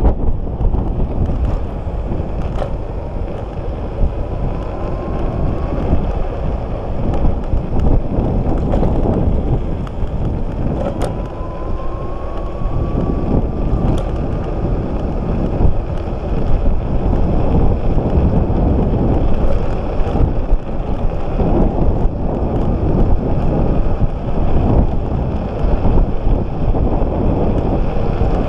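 Riding a Speedway Mini 4 electric scooter on asphalt: steady wind buffeting on the microphone and tyre rumble. A faint motor whine rises in pitch twice, and there are occasional small clicks.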